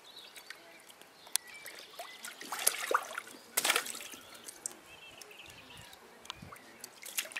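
Shallow water in a small inflatable paddling pool splashing and sloshing as a toddler wades and stamps about in it, in a few short irregular splashes, the biggest around three seconds in.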